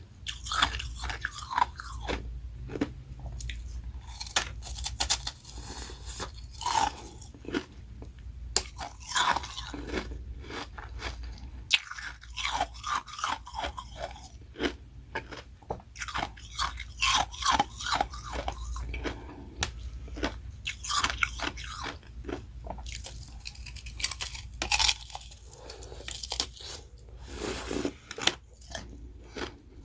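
Close-miked crunching and chewing of ice: carbonated ice rounds and powdery shaved freezer-frost ice, bitten and chewed, a dense run of irregular crackles and crunches with short pauses.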